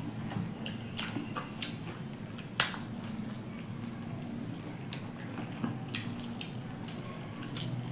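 Hand-eating sounds: wet chewing and lip smacking with fingers working rice and chicken on steel plates, giving scattered small clicks; a sharp click about two and a half seconds in is the loudest. A steady low hum runs underneath.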